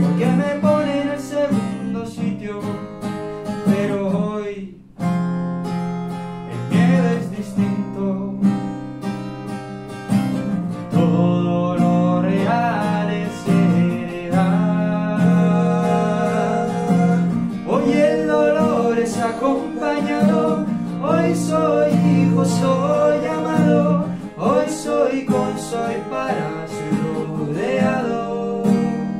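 Acoustic guitar played live with a man singing over it, a brief break about five seconds in.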